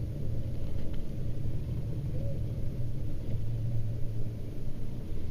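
Boat engine idling, a steady low rumble.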